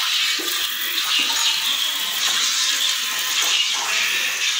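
Milk squirting and splashing into a pail as a cow is hand-milked, a steady hissing stream.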